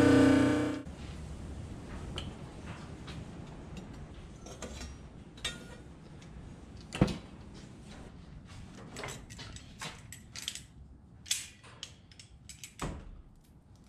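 Music cuts off within the first second. Then scattered light metallic clicks and clinks of blacksmith's tongs and the electric heat-treating kiln's door being worked, with one sharper knock about seven seconds in and a run of clinks near the end.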